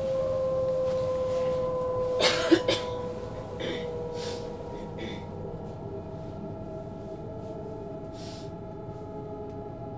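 Interior of a moving electric train: steady running rumble with a faint motor whine that drifts slightly lower in pitch. A little over two seconds in, a brief loud cluster of sharp sounds like a passenger coughing, followed by a few softer hissy bursts.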